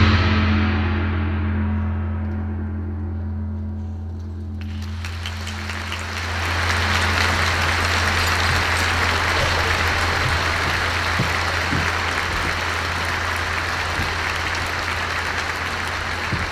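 The final chord of a large concert band dies away, leaving a low ringing. About four and a half seconds in, audience applause rises and carries on steadily over a low hum.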